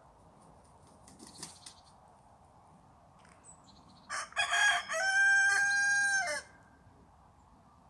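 Rooster crowing once, about four seconds in: a few short broken opening notes, then one long held final note that drops away at the end.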